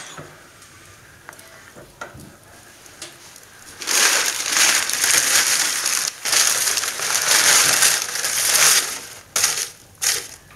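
Paper crumpling loudly as it is handled, in long stretches from about four seconds in, with two short bursts near the end; a few faint clicks come before it.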